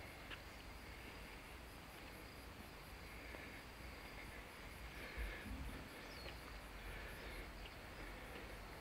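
Insects chirping in a high, rapid, evenly pulsed trill over a faint outdoor hush, with a soft low thump about five seconds in.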